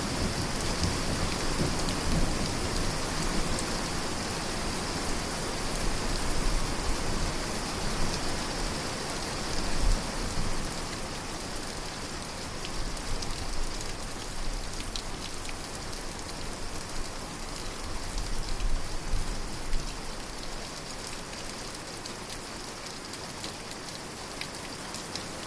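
Steady rain falling, with low rumbles at times. It eases a little near the end.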